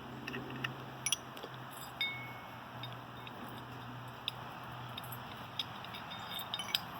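Scattered light metallic clinks and taps of tools and alternator bracket hardware being handled, one clink about two seconds in ringing briefly. A steady low hum runs underneath.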